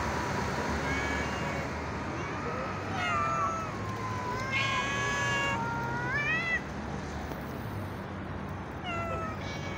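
Domestic cats meowing: about five drawn-out meows, some rising in pitch at the end.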